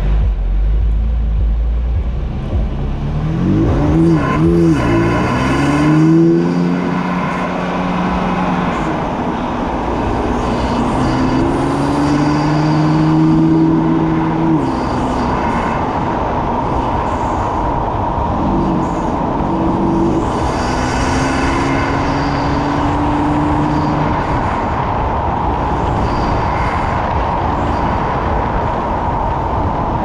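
BMW F80 M3's twin-turbo straight-six, breathing through an M Performance titanium exhaust, rumbles low at first. About three seconds in it pulls away and accelerates hard, its pitch climbing and then dropping at each gear change, and it makes a second pull about two-thirds of the way through. It settles into steady cruising with road and tyre noise near the end.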